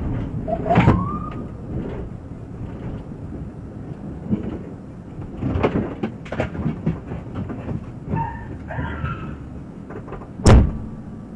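A car ramming police cruisers: running engines and repeated metal thuds, with a rising squeal about a second in. One loud, sharp bang comes near the end.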